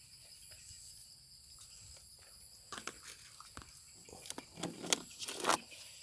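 Steady high chirring of field crickets and other insects. From about three seconds in, irregular rustling and crunching noises join in, growing louder toward the end.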